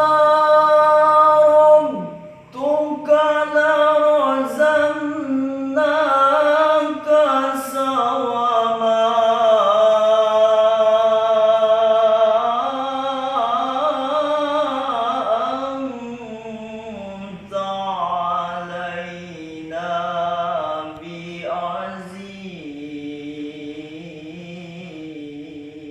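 A man reciting Quran verses in a melodic chanted style (tilawah), with long held notes that bend and turn in pitch and short breaks between phrases. The voice grows quieter in the last third.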